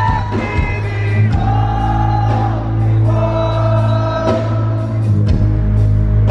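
Rock band playing live through a loud PA, heavy steady bass under held sung notes and regular drum and cymbal hits, with a crowd singing along.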